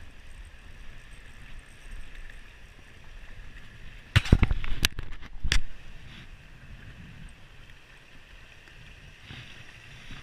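A spinning rod and reel being cast: a tight cluster of sharp clicks and knocks around the middle, over steady wind noise on the microphone.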